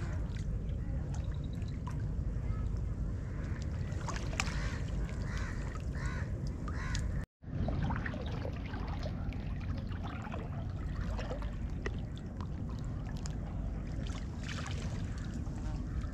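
Water sloshing and trickling around a small boat as crab traps are checked, over a steady low rumble, with scattered small knocks and splashes. A run of short rising-and-falling calls sounds about four to seven seconds in, and the sound drops out for an instant just after the middle.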